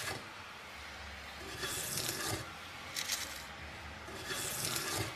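Three strokes of a hand tool shaving wood, each under a second and about a second and a half apart, with the tail of another stroke right at the start.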